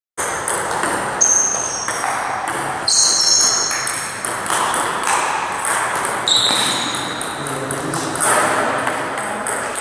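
Table tennis ball clicking off bats and the table during play, irregular sharp hits with a short high ring, with voices in the background.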